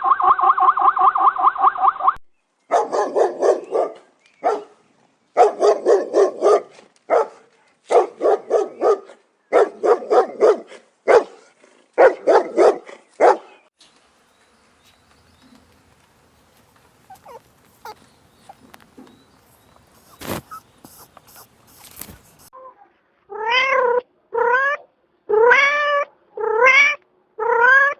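A run of animal calls. First comes a pitched, rapidly pulsing call. Then about six calls of about a second each, made of rapid pulses, follow one after another. After a faint stretch with a few sharp clicks, a cat meows several times near the end, each meow rising in pitch.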